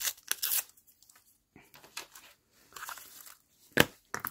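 Thin paper being crinkled and torn by hand: gold-coated baking paper and collage scraps, in short rustling bursts with pauses. A single sharp click comes near the end.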